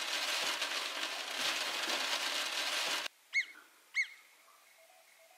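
A steady rushing hiss cuts off abruptly about three seconds in. It is followed by two short, clear bird calls about half a second apart.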